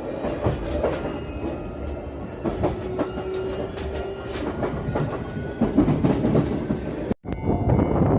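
JR Shikoku 113 series electric train running, its wheels clicking irregularly over rail joints, with a short steady hum in the middle. The sound breaks off sharply about seven seconds in and picks up again as a different, steadier train noise.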